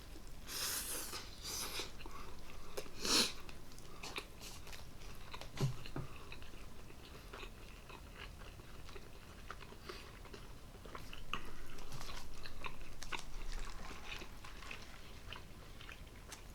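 Close-miked chewing and biting into a stacked meat sandwich, with wet mouth clicks and a few louder bites in the first few seconds.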